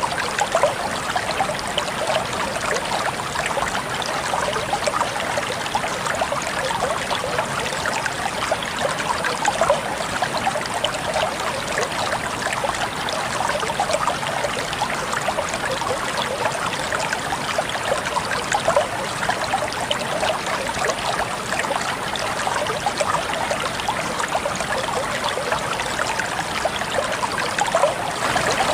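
Water flowing and trickling steadily, the busy splashing of a small stream over stones, with no pauses or changes.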